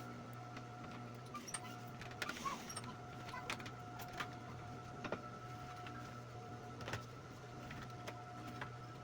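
Scattered small clicks and knocks of tools and parts being handled, over a steady electrical hum.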